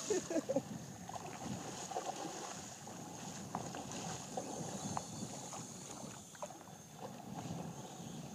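Wind buffeting the microphone over water moving around a small boat's hull, with a few faint splashes and knocks scattered through.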